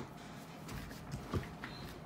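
A few soft knocks, the loudest a dull thump about two-thirds of the way in: a Rubik's cube set down on a wooden desk once the turning has stopped.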